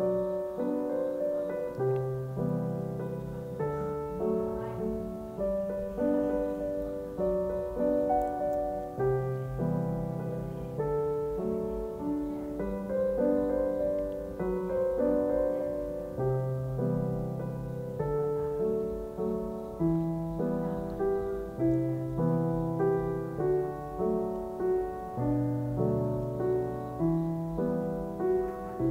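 Background piano music: a slow, even melody over held low notes.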